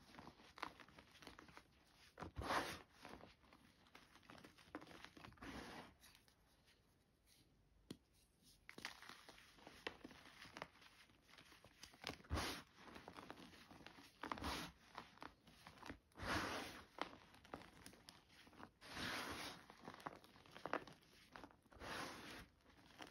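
Reformed gym chalk blocks crushed and crumbled between the fingers, crunching dry in irregular bursts every second or two, with a quieter stretch about six to eight seconds in.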